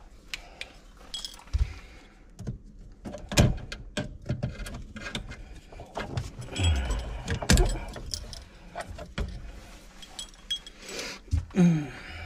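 Irregular knocks, clicks and clattering from parts and tools being handled while a garbage disposal is installed under a sink, with the loudest knocks about three and a half and seven and a half seconds in.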